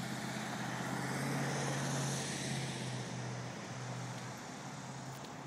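A white SUV driving through the intersection and away: engine hum and tyre noise, loudest about two seconds in, then fading.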